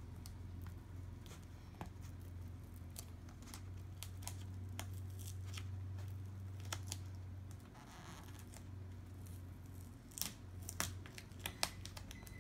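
Adhesive sticker being peeled back off a laptop LCD panel's cable connector, with scattered small clicks and scratches as fingers work the connector loose, faint over a low steady hum.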